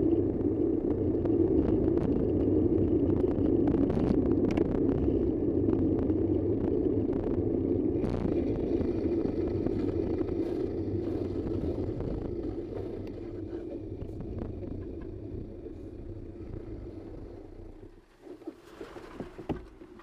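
Steady road and engine noise of a moving vehicle, a dense low rumble that dies down over the last several seconds and drops away near the end.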